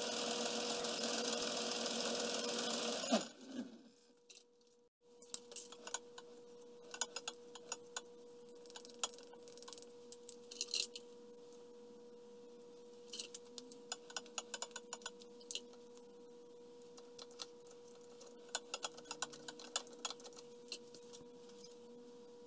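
Vintage Bertram metal lathe running with a steel workpiece in the chuck, then switched off about three seconds in and quickly spinning down. After that there is a steady hum and scattered light clicks of small tools being handled.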